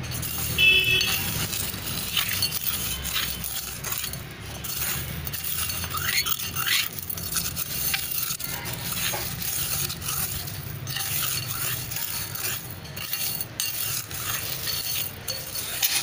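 A metal spoon stirs and scrapes washed stone chips in the metal bowl of a bitumen extractor, the aggregate clinking and rattling against the bowl in short, irregular strokes. The aggregate is being dried after its benzene wash, with the bitumen already extracted.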